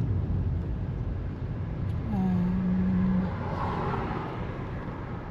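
Steady low rumble of road traffic and vehicle engines. About two seconds in, a woman's voice holds a drawn-out hesitant "uhh" for about a second.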